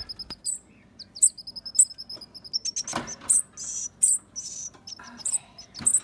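Fledgling songbirds chirping: repeated short, high chirps, with a quick run of rapid chirps about a second in. A knock sounds about halfway.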